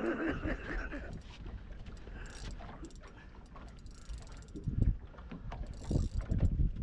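Spinning reel clicking and whirring as it is worked against a hooked fish on a heavily loaded rod. A few dull knocks near the end.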